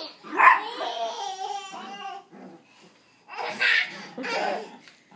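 A toddler laughing in two bouts, the first about half a second in and the second a little past the middle.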